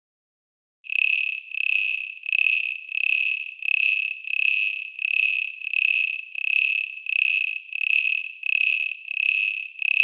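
Cricket calling: a regular series of chirps at one high pitch, about three every two seconds, starting about a second in.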